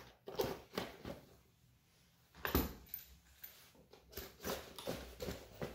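A red cordless drill being handled and pushed into a tool-belt pouch: irregular clunks, rattles and fabric rustles, the loudest knock about two and a half seconds in.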